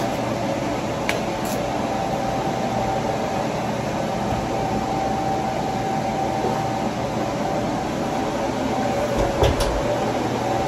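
Steady fan noise: a constant whir with a steady tone running through it and a low hum, and a light knock near the end.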